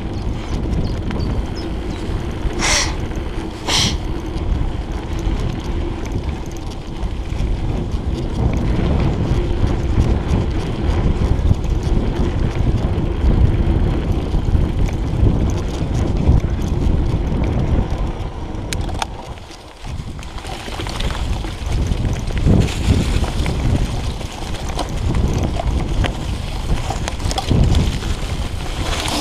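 Wind noise on a chest-mounted action camera's microphone over the rolling noise of a mountain bike's tyres on a dirt and gravel trail. There are two brief sharp sounds about three seconds in, and a short drop in the noise near two-thirds of the way through.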